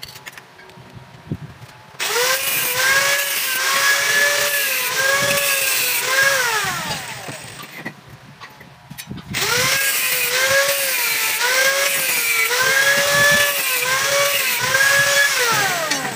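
Angle grinder cutting metal in two runs of about four and six seconds, its motor whine dipping and recovering as the disc bites, then winding down as each cut ends. It is cutting the temporary brace off a welded tube bumper frame.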